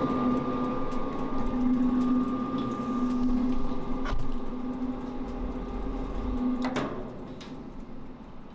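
Tokuju ribbon blender's electric drive running with a steady hum of several fixed tones. It is switched off with a click about seven seconds in, and the hum stops abruptly.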